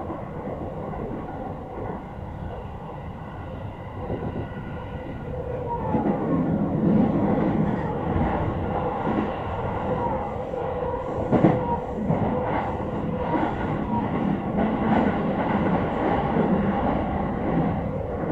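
Electric commuter train running, heard from inside the front car: a steady rumble of wheels on rail with a constant hum. It grows louder about six seconds in, and there is a single sharp clack about eleven seconds in.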